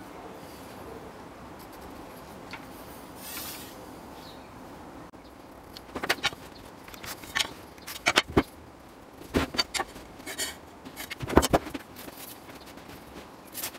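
A metal rule being handled against a wooden bench and oak block: a string of sharp clicks and knocks from about six seconds in, after a few seconds of faint room hiss.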